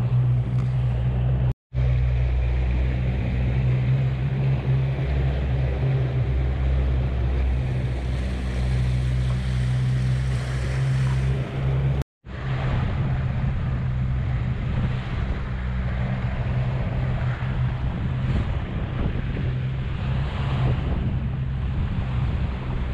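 Boat engine running steadily under way, a low drone under the rush of water past the hull and wind on the microphone. The sound drops out for a split second twice, about one and a half seconds in and about twelve seconds in.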